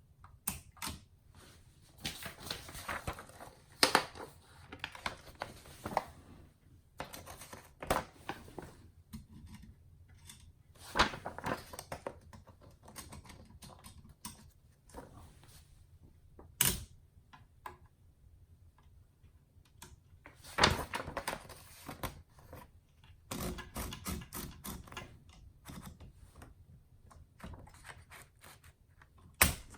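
1955 Empire Aristocrat portable manual typewriter being worked by hand: irregular clicks and clacks of its keys and mechanism in loose clusters, with about six much louder sharp strikes spread a few seconds apart.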